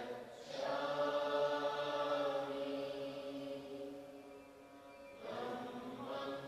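Slow Buddhist chanting: voices hold long, drawn-out notes. One long note fades out, and another begins a little after five seconds in.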